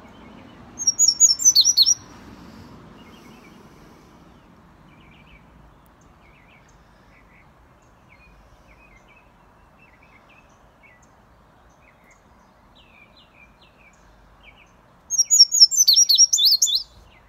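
Caged indigo bunting (Cuban 'azulejo') singing: two loud phrases of rapid, high, paired notes, one about a second in and one near the end, with faint chirps between.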